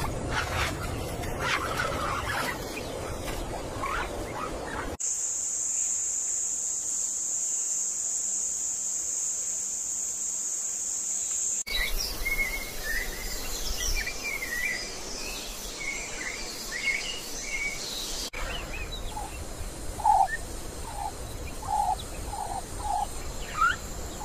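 Wild nature ambience in cut-together beds: a rustling noise with a few chirps, then a steady high insect drone for about seven seconds that stops abruptly, then scattered bird chirps. Near the end a bird calls the same short note about six times in an even rhythm.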